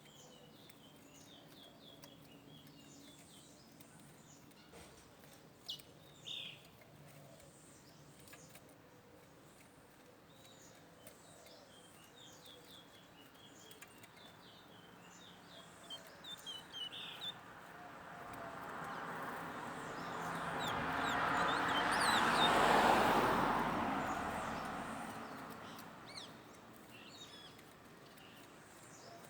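Small songbirds chirping, giving repeated short high chirps throughout. A broad noise swells up about two-thirds of the way through and dies away again over several seconds, louder than the birds.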